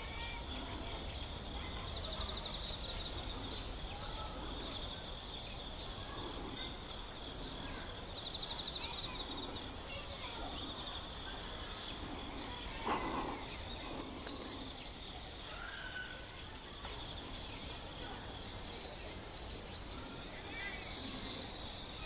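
Outdoor natural ambience: a steady high-pitched insect-like trill with short high bird chirps now and then, and one brief louder low call or knock about 13 seconds in.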